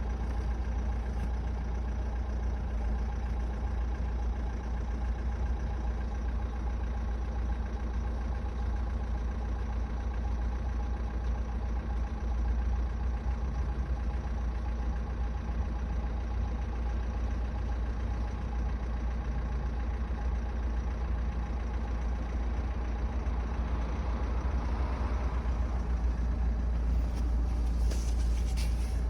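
Renault R9M 1.6 dCi diesel engine idling steadily, with the unexplained knock that the owner is trying to track down.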